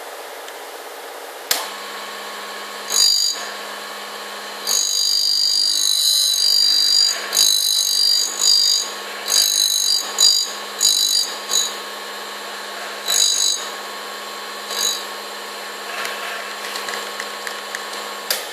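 MR-M3 lathe tool grinder's motor clicking on and running with a steady hum, while a CNC lathe insert is rocked against the spinning grinding wheel: a dozen or so short, high-pitched grinding bursts as the tip touches and leaves the wheel. The motor clicks off at the very end.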